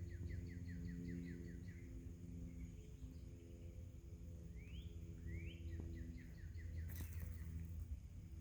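A songbird singing the same phrase twice, two rising whistled notes followed by a quick run of short chirps, over a steady low hum. A sharp click near the end.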